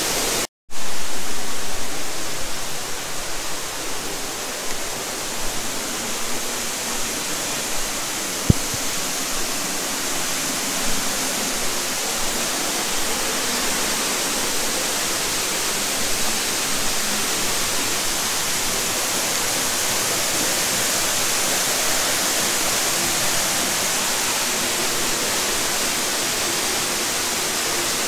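Little Cedar Falls, a waterfall pouring over a sandstone bluff, rushing steadily. The sound cuts out for a moment just after the start, and there is one sharp click about eight seconds in.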